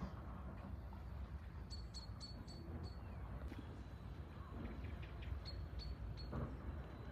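High, quick chirps in two short runs: about five in just over a second, then four more about three seconds later, over a low rumble of wind on the microphone.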